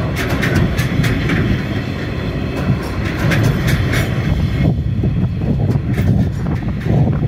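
Empty log wagons of a freight train rolling past: a steady low rumble of steel wheels on rail, with frequent sharp clicks and clanks that thin out after about four and a half seconds.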